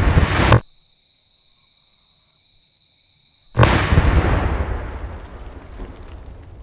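Tannerite target exploding about three and a half seconds in: a sudden blast whose rumble dies away over about two seconds. Before it, a rising rush of noise cuts off suddenly about half a second in, leaving a quiet gap with a faint steady high tone.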